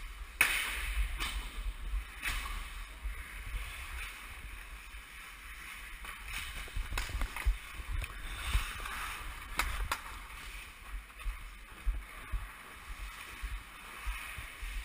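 Ice hockey skate blades scraping and carving on rink ice, a swish with each stride coming at irregular intervals, over a low rumble.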